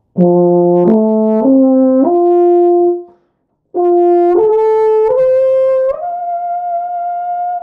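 Euphonium playing a two-octave F major arpeggio upward: four notes rising from the low F to the middle F, which is held, then a short breath, then four more notes climbing from that F to a high F held for over a second. The top notes are reached with faster, more intense air and the tongue shifted toward an 'E' vowel.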